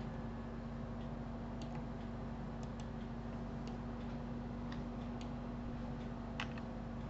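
Scattered faint clicks of a computer mouse, about eight in all, the loudest about six seconds in, over a steady low electrical hum.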